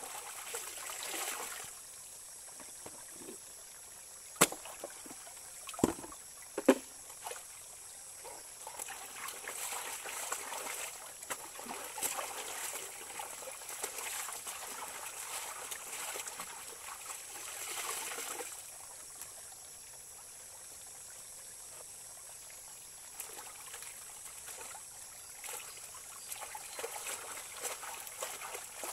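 Laundry being rinsed by hand in a shallow stream: garments lifted and dunked, with splashing and water pouring off them in spells, over the steady trickle of the flowing stream. Three sharp impacts between about four and seven seconds in are the loudest sounds.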